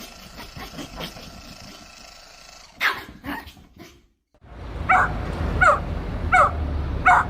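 A dog barking in a steady series, about one bark every three-quarters of a second, over the second half. Before that come fainter scattered sounds and one short, louder noise about three seconds in.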